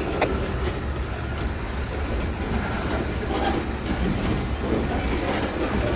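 Freight cars, mostly covered hoppers and tank cars, rolling slowly past while being shoved: a steady low rumble of steel wheels on the rails, with occasional clacks.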